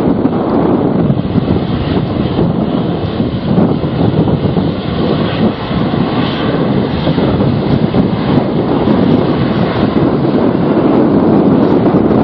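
Aircraft engine noise mixed with strong, gusty wind buffeting the microphone: a continuous rushing noise that rises and falls.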